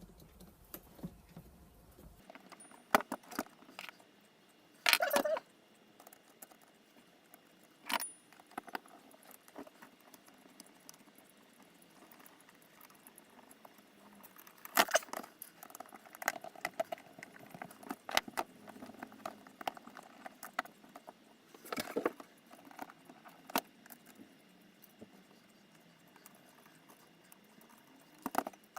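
Hand work on a servo and robot arm kit parts: scattered clicks, clinks and small knocks as the servo is pressed into its tight-fitting bracket, with quieter pauses between. A few knocks are louder than the rest.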